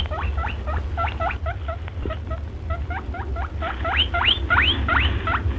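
Rabbit screaming: a fast run of short, shrill squeaks, several a second, each rising sharply in pitch, with a few longer, louder rising squeals about four to five seconds in. A steady low hum sits underneath.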